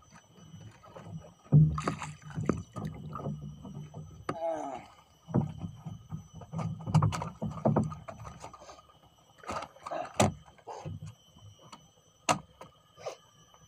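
Irregular knocks and thumps against a small wooden boat as a fish is hauled in on a handline and unhooked, with a few sharp clicks near the end and a brief voice about four and a half seconds in.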